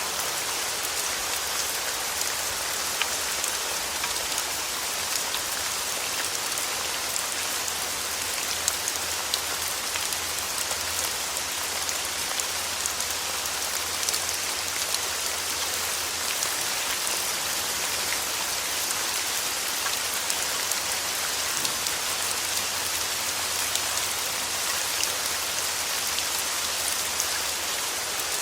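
Steady rain falling on a surface: an even hiss dotted with many small drop ticks, with a faint low steady hum underneath.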